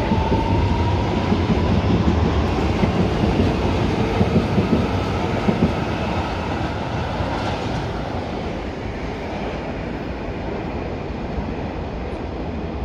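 CPTM Fleet H electric passenger train running past on curved track, its wheels clacking over rail joints with a thin high tone above the rumble in the first seconds. The sound eases off in the second half as the train moves away.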